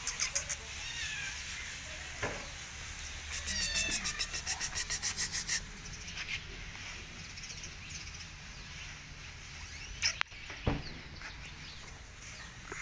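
Young calico kitten meowing in thin, high calls. A fast run of high clicking chirps comes in the middle, and two sharp knocks come near the end.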